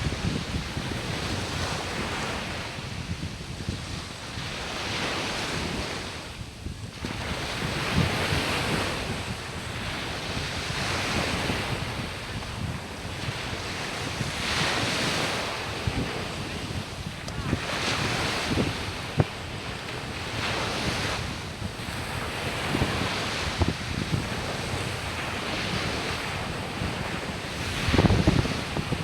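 Sea waves washing onto a beach, with the surf swelling and falling every few seconds, and wind buffeting the microphone, hardest near the end.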